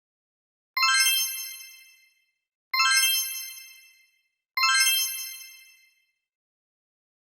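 A bright, sparkly chime sound effect of the kind used for pop-up subtitles, played three times about two seconds apart; each chime starts suddenly and fades out over about a second.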